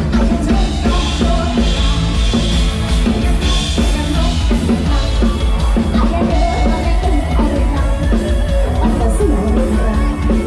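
Loud live lam sing band music with a steady pounding beat on drum kit and bass, and a singing voice.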